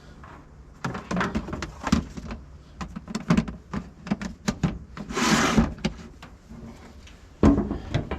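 Work-handling noise: a run of irregular knocks and clatters, a short rustle or hiss about five seconds in, and a sharp knock near the end.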